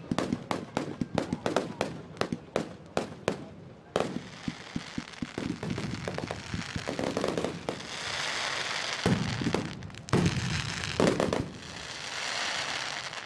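Aerial fireworks display. For about four seconds there is a rapid string of sharp bangs, several a second. Then a dense crackling hiss of glittering star bursts takes over, swelling in the second half, with a few heavier booms.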